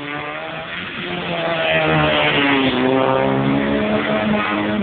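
Rally car engines revving hard as the cars race past, the pitch climbing and dropping with the throttle. The sound grows loud about a second and a half in.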